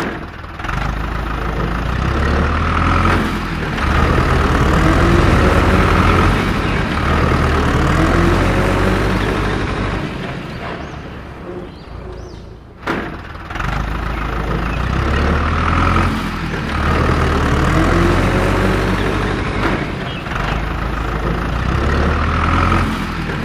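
Tractor engine running steadily with a deep throb. It drops quieter for a couple of seconds about ten seconds in, then comes back after a sharp knock.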